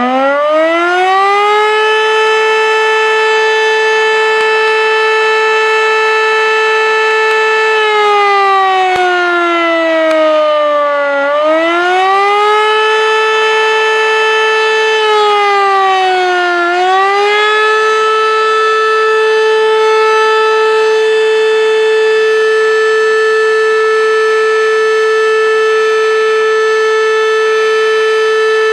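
Fire siren winding up to a steady wail, twice sagging in pitch and winding back up, then holding one steady wail.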